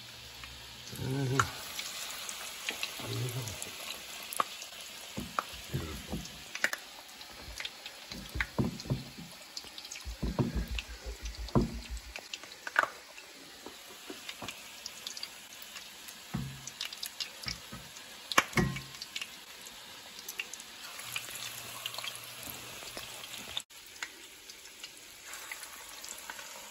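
Egg-battered flounder fillets frying in olive oil and butter: a steady sizzle, with drips of batter and many short clicks and knocks as the fillets are handled in the pan.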